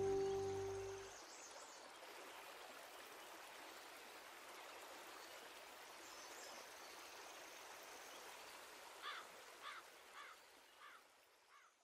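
Background music fades out about a second in, leaving a steady, quiet rush of flowing river water. Near the end a bird gives about five short chirps as the sound fades away.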